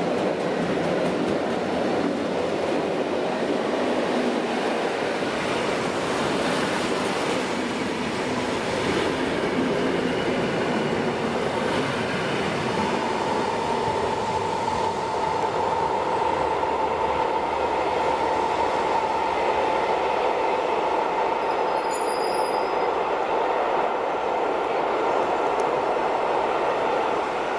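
Freight train of double-deck car-carrier wagons rolling past on the rails and running on steadily as it moves away. About halfway through a steady high wheel squeal joins the rolling noise and holds.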